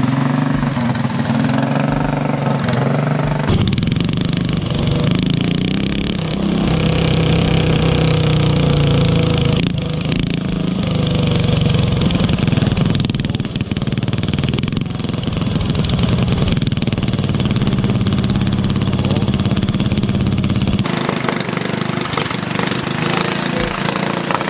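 Small mini bike engine running, its speed shifting up and down.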